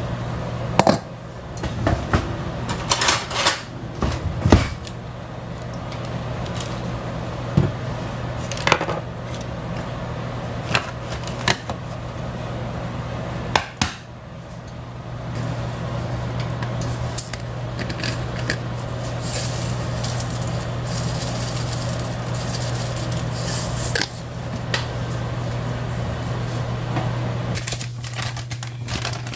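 Kitchen handling sounds: dishes, pots and containers knocking and clattering now and then over a steady low hum.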